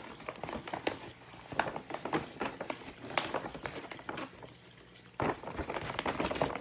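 Paper gift bag being straightened out and opened: irregular crinkles and crackles of stiff paper, quieter for a moment, then louder again near the end.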